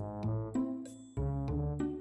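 Background music: a light, bouncy instrumental tune with bass notes and a regular beat.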